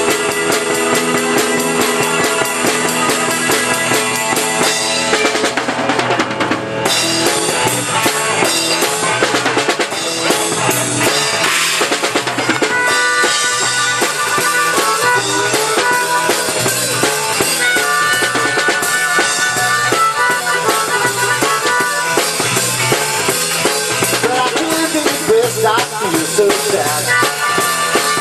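Live rock band playing an instrumental passage: drum kit, electric guitar and bass guitar. About halfway through, a harmonica comes in over the band, playing a solo of held, wailing notes.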